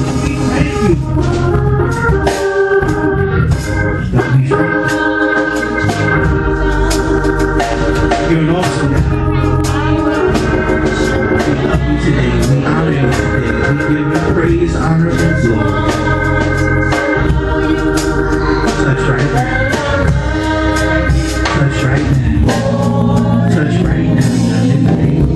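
Gospel organ music: held electric organ chords over a strong bass line and a steady beat.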